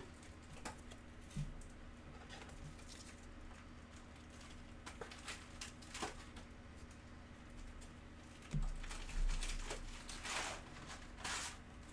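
Trading cards being handled: soft clicks and rustles of cards and a rigid plastic card holder, then a low bump and a couple of brief swishes of cards sliding over each other near the end. A faint steady hum runs underneath.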